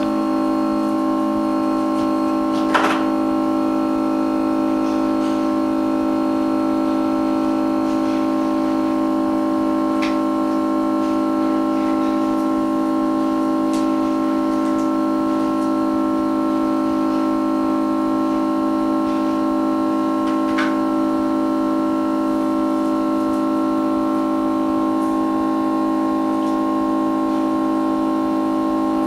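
Background music: a single held chord that stays unchanged throughout, with a few faint clicks.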